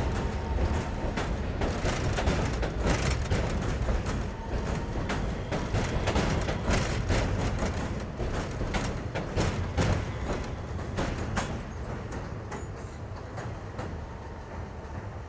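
R160B New York City subway train pulling out along an elevated steel structure: steady wheel-on-rail rumble with rapid, irregular clicking and clattering over the rail joints. It fades over the last few seconds as the rear cars pass and the train draws away.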